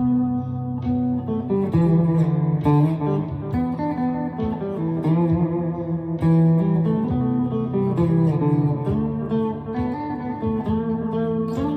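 Chapman ML3 Pro Traditional electric guitar with Seymour Duncan Hot Tele pickups, played in an ambient style: picked notes and chord shapes that ring on and overlap one another.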